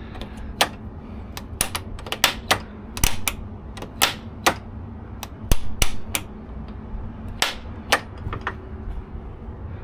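A small mechanism in a truck cab being worked by hand: irregular sharp clicks and snaps, a few at a time, over a low rumble.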